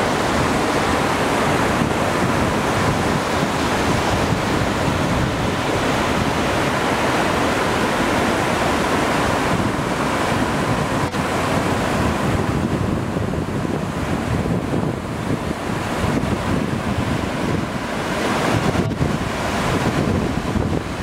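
Steady rushing of a waterfall and river water, with wind buffeting the microphone; the sound grows a little duller about halfway through.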